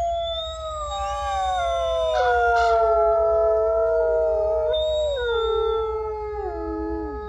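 Several wolves howling together, long overlapping howls at different pitches, slowly gliding, with one howl sliding down near the end.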